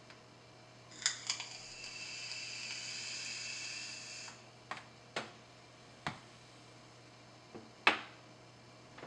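Box vape mod with a tank atomizer being drawn on: two clicks, then about three seconds of airy hiss with a faint whistle as air is pulled through the atomizer. Scattered clicks and knocks follow, the loudest near the end as the mod is set back down on the desk.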